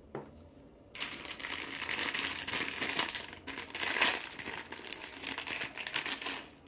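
Clear plastic bag crinkling and crackling as hands open and handle it, starting about a second in.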